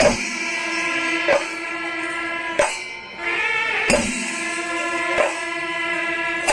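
Kerala temple melam ensemble playing: a reed pipe holds long, steady notes over sharp, regular percussion strikes about every 1.3 seconds.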